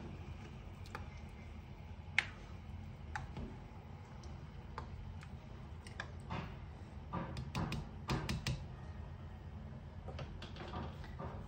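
Scattered light clicks and taps of a utensil against a cooking pot: a sharp one about two seconds in, then a cluster through the middle and a few more near the end, over a steady low hum.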